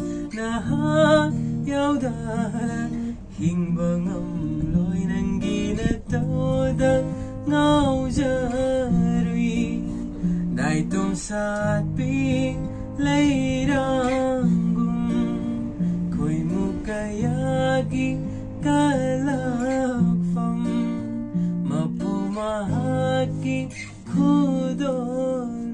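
Acoustic guitar strummed in chords, accompanying a man singing a song.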